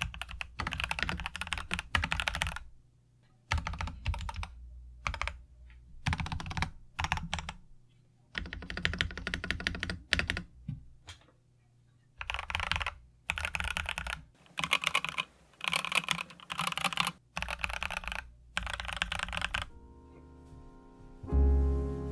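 Typing on a budget 60% custom mechanical keyboard with lubed KBDfans Cheese Mocha switches: dense runs of keystrokes in bursts separated by short pauses. Near the end the typing stops and piano music comes in.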